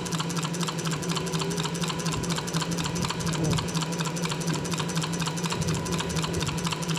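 Rapid, even ticking, about ten clicks a second, over a steady low electrical hum.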